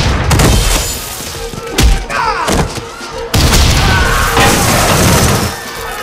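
Action-film fight sound effects: heavy booming thuds and crashes, with a short sharp hit just before two seconds in and a long loud stretch of impacts from a little past three seconds.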